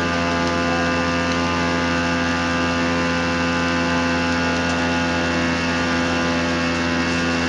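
Small engine running steadily with an even droning hum, typical of a portable fire pump feeding a firefighter's hose line.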